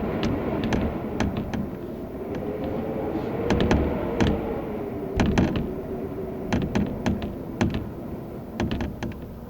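Blizzard wind howling, its pitch wavering slowly up and down over a low rumble, with many scattered sharp knocks and rattles, clustered in places.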